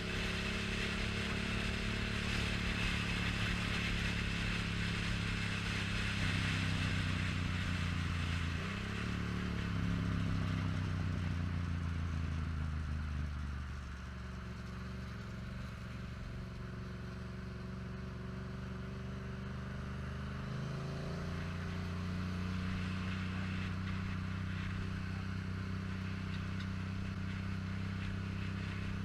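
Yamaha FZ-07's parallel-twin engine running under way, with wind rush over the helmet microphone. The engine note changes about eight seconds in, eases off and gets quieter around fourteen seconds, then rises again around twenty-one seconds.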